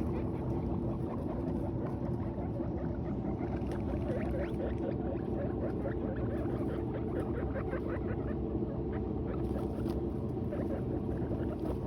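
Guinea pigs chewing hay: a rapid, dense crisp crunching over a steady low background noise.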